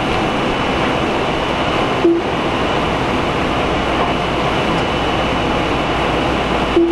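Steady loud rushing noise of automatic car wash machinery running, with a short electronic beep from the wash kiosk's touchscreen about two seconds in and again near the end as buttons are pressed.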